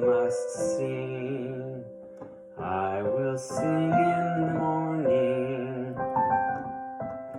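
A slow, tender song: a voice sings held, wavering notes over a soft piano or keyboard accompaniment, with a short lull about two seconds in.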